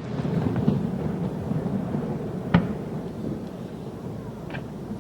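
Fireworks display: a continuous low rumble of booms, with one sharp report about two and a half seconds in and a fainter one near the end.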